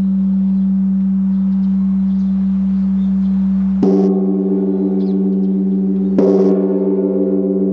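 Struck bronze at a Buddhist temple: a steady low ringing hum, with two sharp metallic strikes about two and a half seconds apart, near four and six seconds in. Each strike adds several bright ringing tones over the hum.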